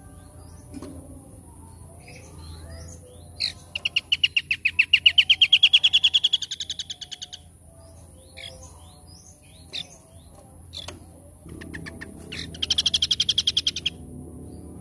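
Small songbird singing: scattered short chirps, a long rapid trill of about three and a half seconds that rises slightly in pitch, and a second shorter trill near the end.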